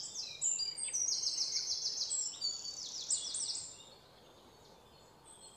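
Several birds singing in the treetops: overlapping series of rapid, high chirps at different pitches, fading out about four seconds in.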